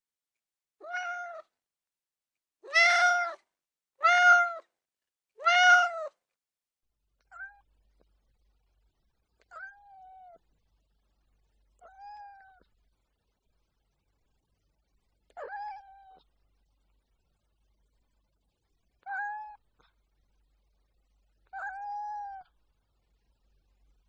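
A cat meowing repeatedly: one meow, then three loud, long meows about a second apart, followed by six quieter, shorter meows spaced a few seconds apart.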